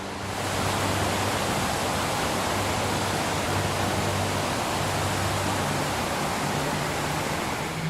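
Steady rush of a waterfall, an even, continuous roar of falling water.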